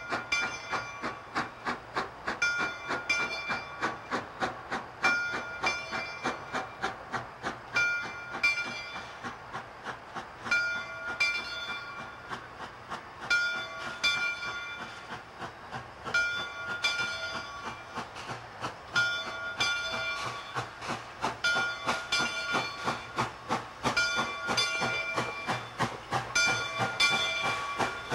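Steam locomotive approaching under steam, its exhaust chuffing rapidly, while its bell rings steadily in pairs of strokes about every three seconds.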